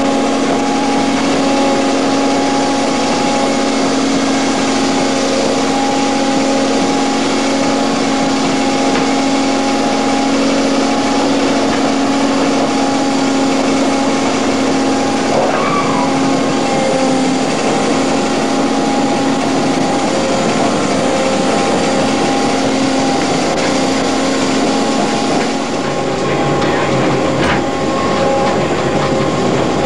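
A tourist tram running along the rails: a steady, loud engine drone with a held whine over a rushing noise. Near the end the engine note drops lower.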